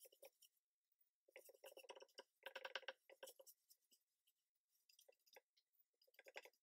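Very faint strokes of a paintbrush spreading wet amber shellac over a wooden lid, heard as a few short spells of brushing, the loudest between about one and a half and three and a half seconds in.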